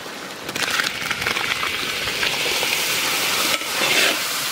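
Tomato and green chilli paste sizzling and crackling as it goes into hot oil and fried spices in a large kadai, stirred with a metal spatula. The sizzle builds up about half a second in and stays strong.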